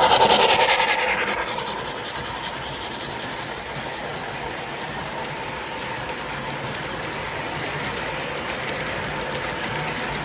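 Model Western Maryland M2 Challenger steam locomotive and its freight cars running on the layout's track, with rapid clicking of the wheels over the rails. The sound is loudest for about the first second, then drops about a second in and carries on at a steady, quieter level.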